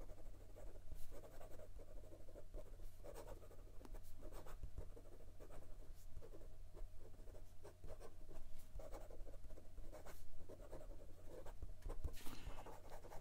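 Fountain pen with a 14-karat gold medium nib writing quickly in cursive on lined notebook paper: a run of short, irregular pen strokes, smooth rather than scratchy.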